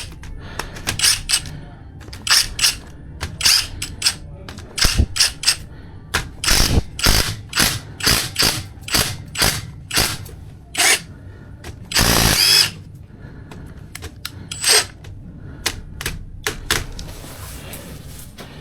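An irregular series of sharp knocks, mostly two or three a second and sometimes in quick clusters, like hand-tool strikes on a hard surface. About twelve seconds in there is a harsher burst lasting about half a second.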